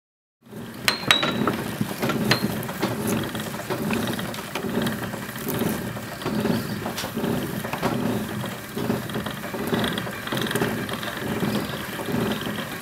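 Mechanical clattering and clicking, like gears or a running machine, with a rhythm repeating about one and a half times a second and a few sharp clicks near the start.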